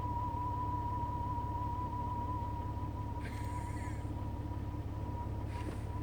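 Jeep engine idling with a low rumble under a steady, slightly wavering high whistle that does not come from the radio. Two brief bursts of hiss, about three seconds in and near the end.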